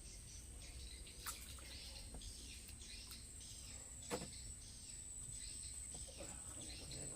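Outdoor ambience dominated by insects droning steadily at a high pitch, with scattered chirping over a low rumble. Two sharp clicks come about a second in and about four seconds in, the second the loudest.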